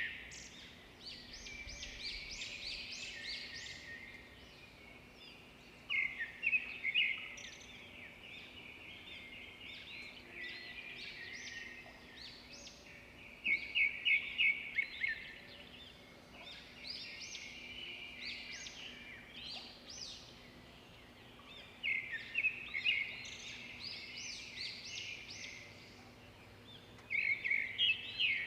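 Birds chirping and calling, with a louder burst of rapid chirps every several seconds.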